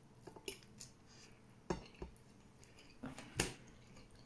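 Close eating sounds of a person eating rice and chicken by hand: chewing with a few short smacks and clicks, the loudest about three and a half seconds in.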